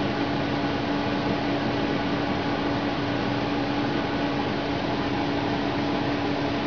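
A computer's cooling fan running: a steady whirring hum and hiss with one low droning tone.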